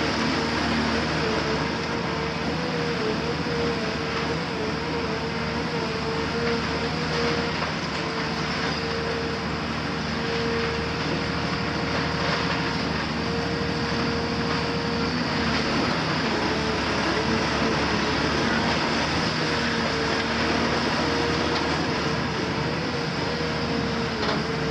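CAT 340F UHD demolition excavator with its Cat C9.3 diesel running hard under working load, with a steady whine that wavers slightly in pitch. Scattered crunching of masonry comes from the long-front attachment breaking into the building.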